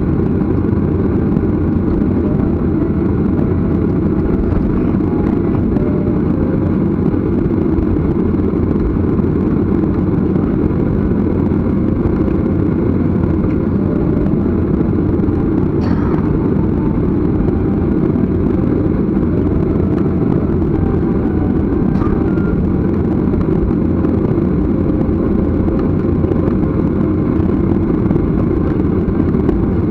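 Steady low rumble inside a jet airliner's cabin as it taxis after landing, the engines running at taxi power.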